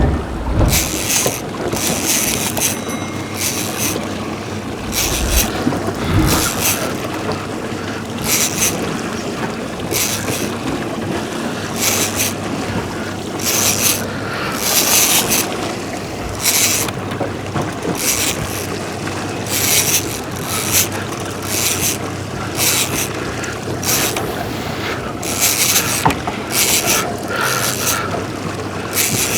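Boat's steady engine and wind noise, with short hissing bursts every one to two seconds.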